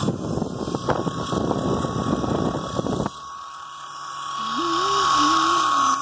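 Small electric toy RC helicopter's motor and rotor whining steadily. For the first three seconds rough rustling noise partly covers it, then cuts off suddenly, and the whine swells louder. A faint wavering tone comes in near the end.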